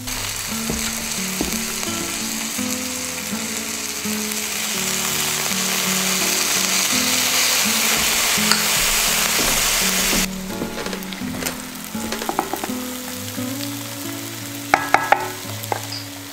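Food sizzling and frying in a hot pan, growing louder and then cutting off abruptly about ten seconds in. After that come a few light knocks and sharp metallic clinks of utensils against the pan.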